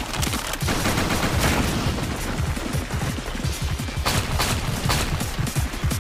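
Anime fight sound effects: a rapid volley of blood projectiles fired and striking, a dense string of impacts like gunfire, with two sharper cracks near the end.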